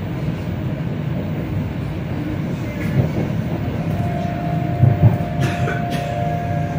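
Running noise of a moving electric suburban train: a steady low rumble with wheel knocks over the rails, two louder ones about five seconds in. A steady whine joins about four seconds in.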